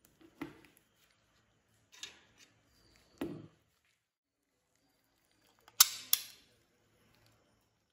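Sharp plastic clicks and knocks of a scale model car's body parts being handled and pried apart, five or six separate snaps with quiet between them, the loudest two in quick succession about six seconds in.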